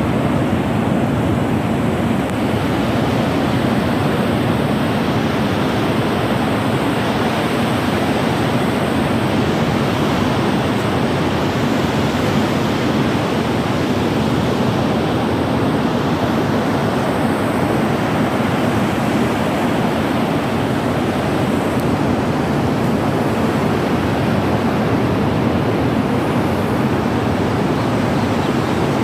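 Ocean surf breaking on a sandy beach: a steady, unbroken roar of waves.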